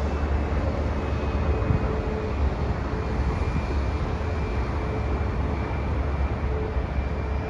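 Boeing 737 MAX 8's CFM LEAP-1B turbofan engines running steadily: a low rumble with a steady whine over it.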